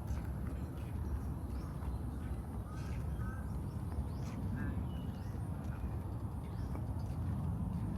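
Park ambience: a steady low rumble, birds chirping faintly a few times around the middle, and soft walking footsteps about once a second.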